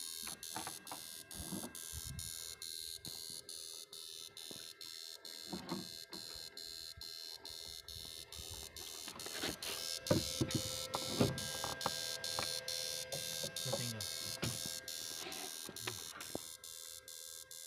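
Electrofishing inverter (Y800, 8-MOSFET) running: a steady electrical hum and buzz with even clicks about three to four times a second, the pulses it sends into the water.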